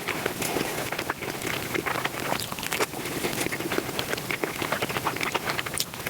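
Close-miked eating sounds played back sped up: a fast, continuous crackle of chewing, smacking and crunching clicks.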